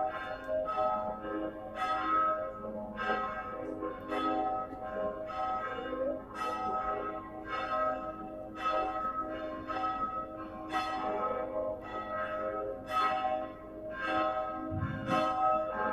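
Church bell ringing: repeated strokes about once a second, each ringing on into the next. A brief low rumble comes in near the end.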